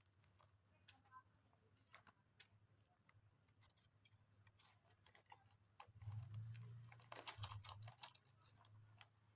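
Faint, scattered light clicks and rustles of hands handling a small wrapped craft squishy and its packaging. They get busier, with a low rumble, about six seconds in.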